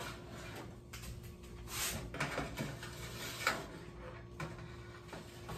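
Wire mesh trays of a Cosori stainless steel food dehydrator sliding into its rack slots and being set down, giving several scrapes and light clicks, the loudest scrape about two seconds in.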